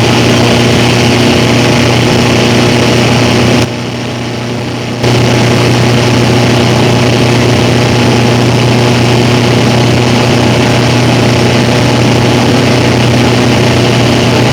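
Jet ski engine running steadily, dipping briefly in level about four seconds in.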